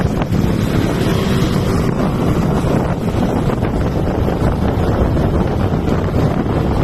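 Steady wind buffeting the microphone, a loud rumbling noise that flutters unevenly.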